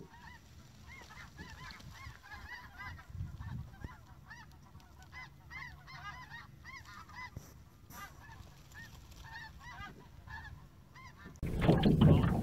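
A large flock of geese calling high overhead, many short high honks overlapping without a break. About a second before the end it cuts abruptly to loud wind noise on the microphone.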